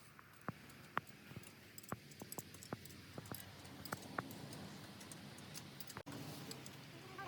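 A series of light, sharp clicks and taps at uneven intervals over a faint steady low hum, with a brief break in the sound about six seconds in.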